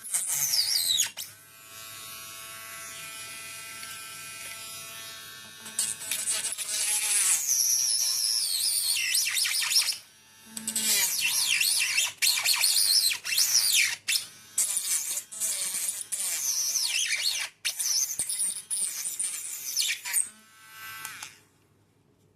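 Mini grinder with a small cutting disc, running and cutting in a series of passes. Its high whine drops in pitch each time the disc bites and climbs again as it frees up. It stops near the end.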